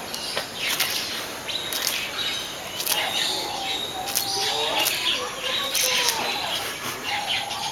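Several birds chirping and calling, with short sliding calls and a few sharp clicks among them.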